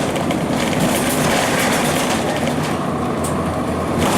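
Cummins ISC diesel engine of a 2002 Blue Bird CS transit bus running steadily with a low hum, over road rumble and light rattles heard from inside the bus.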